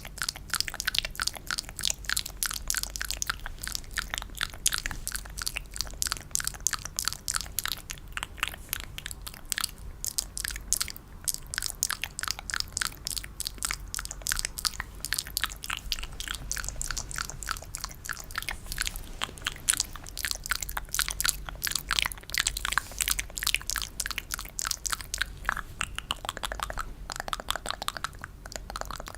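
ASMR mouth sounds, as in a spit-painting trigger: a quick, steady run of small wet clicks and smacks from the lips and tongue.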